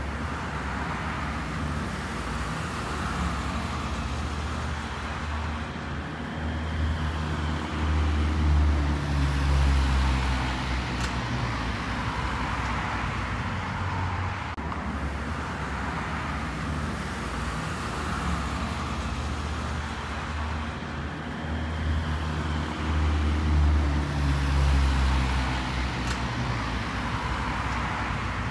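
Road traffic: continuous engine and tyre noise from passing vehicles, with two louder vehicles going by, one about a quarter of the way in and another about four-fifths of the way through.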